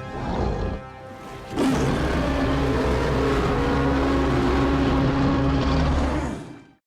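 Creature sound effect for Kong, the giant ape: a low, steady rumble with one held tone over it. It starts about a second and a half in, lasts about five seconds and fades out near the end.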